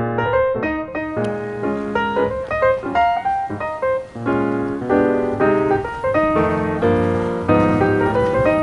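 Background piano music: a busy stream of quick notes over held bass notes.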